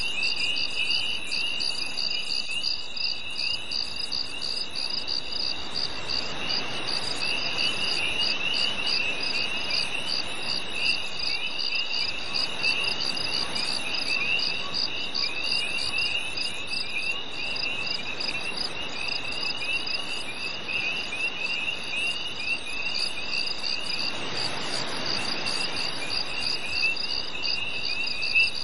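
A chorus of crickets chirping steadily on a summer night, several insects layered at different pitches, with rapid, evenly spaced chirps and a continuous high trill. A soft rushing background noise swells briefly twice, about six seconds in and again near the end.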